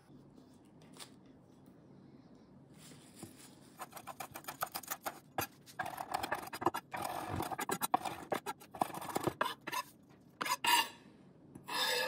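Chef's knife chopping fresh coriander on a wooden cutting board: a quick run of sharp knocks, then two longer scrapes of the blade across the board near the end as the herbs are gathered off it.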